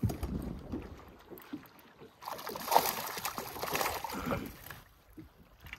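A hooked fish splashing and thrashing at the surface beside the boat, starting about two seconds in and lasting a couple of seconds, with lighter water sloshing before it.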